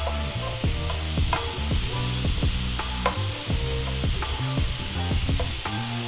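Spatula stirring and scraping ground beef with seasonings in a hot skillet, the meat sizzling as it browns, over background music.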